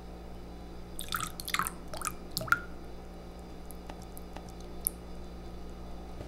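Liquid dripping from a tipped carton into a ceramic cup: a quick run of about five drops about a second in, then a few fainter drips, over a steady low hum.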